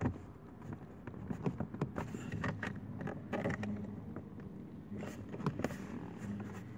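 Plastic interior kick panel being pushed and pressed into place by hand: a scatter of light clicks and scrapes.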